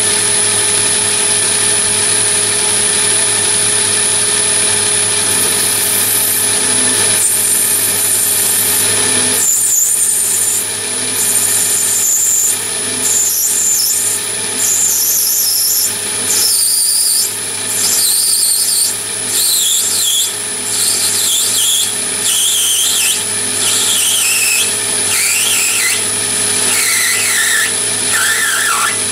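Chinese mini lathe running with a steady high whine while a parting tool is fed into a spinning brass bar. From about six seconds in, the cut squeals in repeated short bursts with brief gaps, the squeal dropping in pitch through the cut.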